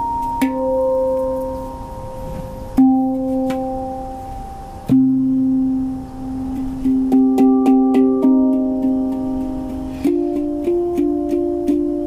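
Handpan played by hand, its struck steel notes ringing on. Single notes come a couple of seconds apart at first, then a quick run of notes about seven seconds in, and a further cluster of strikes near the end.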